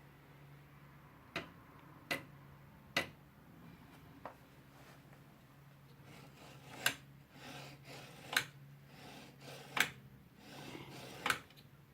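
A CTC Prusa i3 3D printer's X-axis clicking sharply about eight times at uneven intervals over a steady low hum, the symptom of its X-axis belt tensioner problem.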